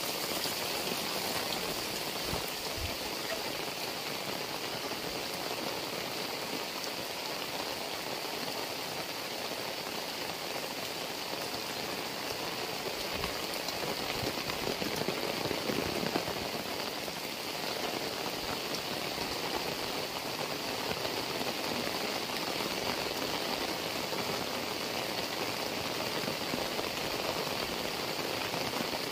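Heavy rain falling steadily on the ground, leaves and roofs, swelling a little louder about halfway through.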